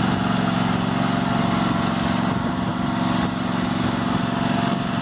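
Husqvarna riding lawn mower's engine running steadily as the mower drives along.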